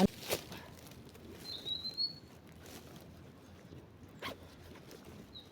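Camping gear being handled: soft rustling and a few light clicks and knocks. A bird gives a short rising whistle about one and a half seconds in and a brief one again near the end.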